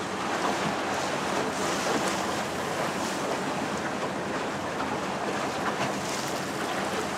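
Steady wash of water and wind buffeting the microphone aboard a small motor boat.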